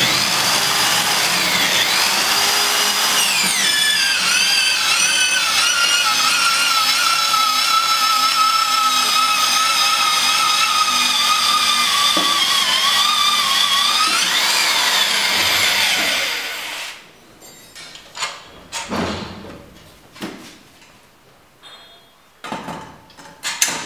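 Electric facing tool (pipe-end planer) of a hydraulic butt fusion welding machine running against the HDPE pipe ends, a steady motor whine that sags in pitch as it cuts, rises briefly and stops about sixteen seconds in. A few metal clanks follow as the tool is lifted out and set down.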